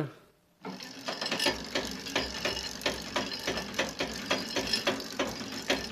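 Hoverboard hub motor driving a sprocket and chain to move a log band saw's head to a new height, the chain clicking and rattling over the sprocket with a pulsing low motor hum. It starts about half a second in, after a brief silence.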